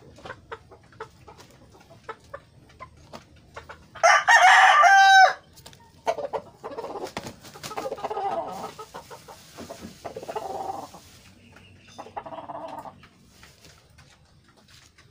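A rooster crows once, loudly, about four seconds in, and the crow falls in pitch at its end. Chickens cluck on and off afterwards. Light clicks and taps sound before the crow.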